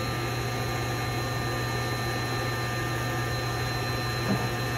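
Hardinge HLV-H-EM toolroom lathe running with its power feed driving the cross slide in reverse: a steady low hum with a few thin, constant high whines over it.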